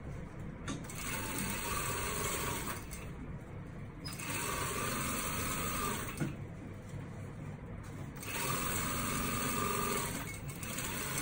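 Brother industrial sewing machine running in three short bursts of about two seconds each, stitching a seam through cotton fabric, stopping between bursts while the fabric is turned around the curve.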